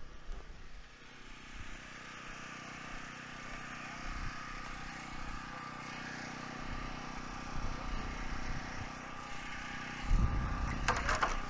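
A steady engine drone with a fixed hum, swelling a little in the middle. Near the end come a few sharp knocks and clatter.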